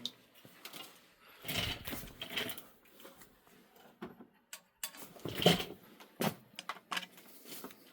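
Scattered irregular knocks and rustling handling noises with quiet gaps between them.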